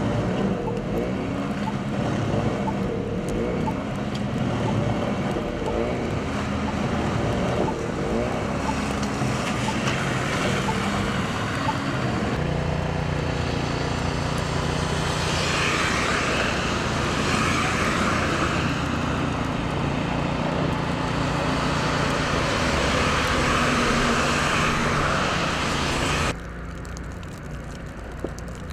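A snow blower's petrol engine running under load as it throws heavy wet snow and slush. About twelve seconds in, this gives way to vehicles driving on a snowy road, a steady engine hum under the hiss of tyres through slush. Near the end the sound drops to quieter street background.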